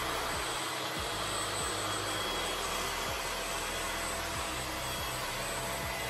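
Ecovacs T10 Omni robot vacuum running: a steady whir of its suction fan with a faint high whine over it.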